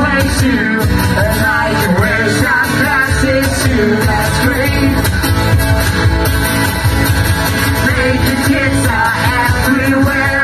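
Live rock song: a singer over guitar and a steady beat.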